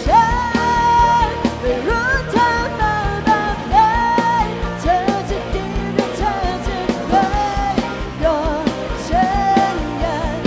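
Live rock band playing a Thai-language song: a female singer holds long, wavering notes over a drum kit's steady beat and electric guitar.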